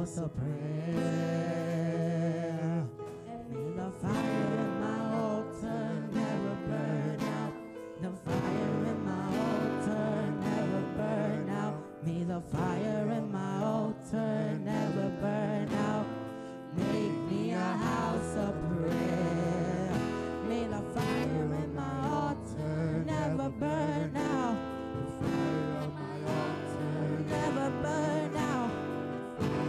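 Worship song performed live: strummed acoustic guitar with singing.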